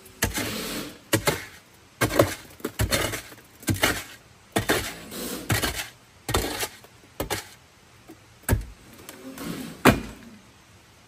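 A shovel scraping crushed gravel out of the plastic bed of a tipped dump cart, the stones sliding and pouring out in repeated gritty strokes about once a second. A sharp knock near the end.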